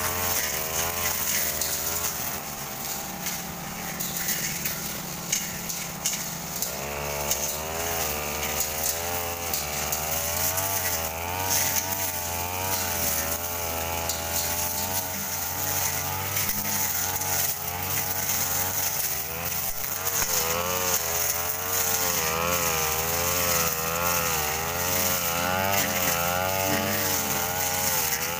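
Backpack brush cutter engines running under load while cutting undergrowth, their pitch rising and falling in quick waves as the blade bites into the weeds and frees up, with frequent ticks of cut debris.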